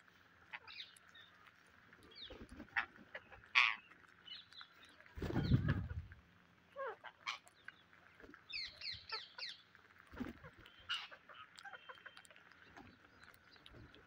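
Rose-ringed parakeets feeding in a flock, giving scattered short squawks and chirps, with a quick run of about five calls a little past the middle. About five seconds in, a louder low fluttering thud, wingbeats close to the microphone.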